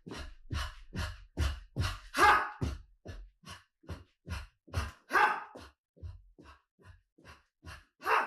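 A man breathing hard and sharply in rhythm as he dances, one short forceful breath or grunt about every half second with a low thud on each beat. The breaths are louder about two seconds in and again about five seconds in.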